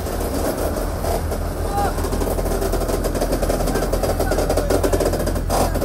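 Indistinct chatter of several workers over a steady low hum of running machinery.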